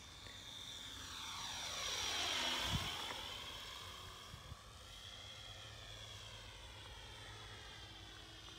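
Radio-controlled Spitfire model flying a low pass: the whine of its motor and propeller grows louder, drops sharply in pitch as the plane goes by a couple of seconds in, then carries on steadier and quieter as it flies away. A brief thump comes at the loudest moment of the pass.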